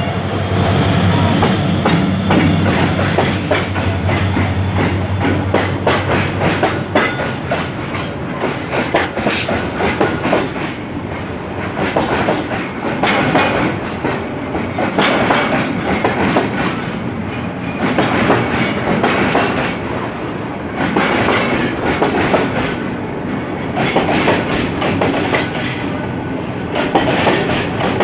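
Diesel-hauled container freight train passing close by. The locomotive's engine hum fades over the first several seconds as it moves off, then the loaded container flatcars roll past with wheels clattering over the rail joints, swelling in groups every couple of seconds as each car's wheelsets go by.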